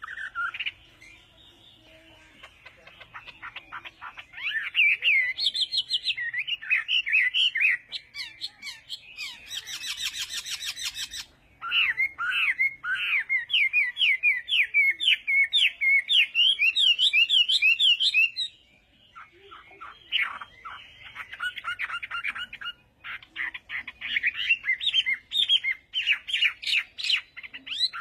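Birds calling in rapid runs of short, sharp chirps, several a second, with brief lulls between the runs.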